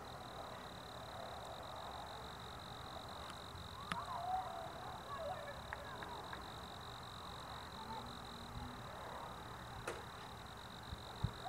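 Distant children shouting and screaming, faint short wavering cries mostly about four to six seconds in, over a steady high-pitched whine and background hiss.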